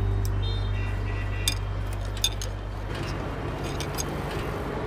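Scattered light metallic clinks and taps of tools against a bicycle's frame and wheel, about half a dozen sharp ones, with a low steady hum underneath that fades out over the first three seconds.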